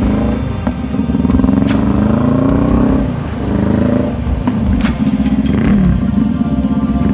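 Honda Rebel CMX500's parallel-twin engine through a Vance & Hines aftermarket exhaust, pulling away under acceleration. Its pitch climbs and drops back at gear changes, about three seconds in and again near the end, over background music.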